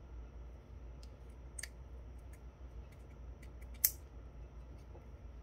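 Scattered small clicks and ticks of hard plastic as a digital camera's lens assembly is handled and worked at by hand to get it to come apart further, with one sharper click a little before four seconds in.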